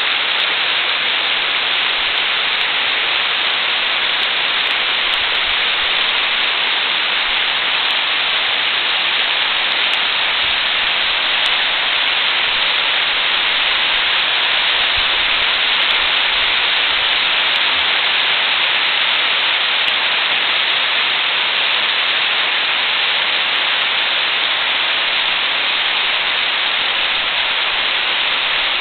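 Hard rain pouring down on jungle trees, leaves and ground, a loud steady hiss that does not let up.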